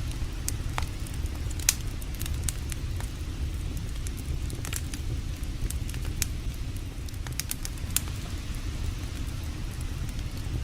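Campfire burning, with irregular sharp crackles and pops, two of them louder about a second and a half in and near eight seconds in, over a steady low rush.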